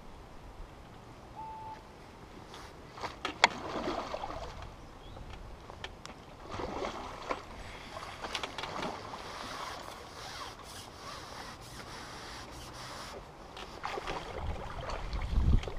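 Water splashing and sloshing as a hooked carp is drawn over the landing net, with a sharp click about three seconds in and low knocks from handling the pole and net near the end.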